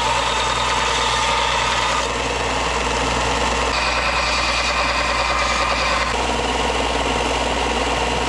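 Bench belt sander running steadily while forged steel is pressed against the moving belt and ground, throwing sparks. The grinding sound shifts a few times as the piece is repositioned on the belt.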